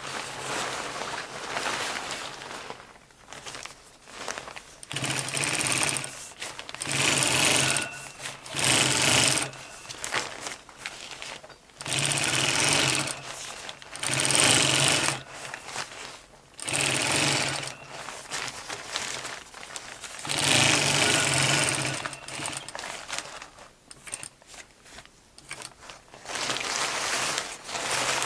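Domestic sewing machine stitching through a vinyl poncho in about seven short runs of a second or two each, stopping and starting, with quieter fabric handling between runs.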